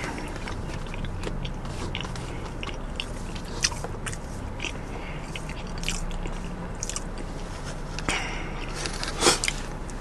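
Close-miked mouth sounds of a man eating sauced fried chicken wings: chewing with frequent wet lip smacks and clicks, and a louder cluster of smacks about eight and nine seconds in. A low steady hum runs underneath.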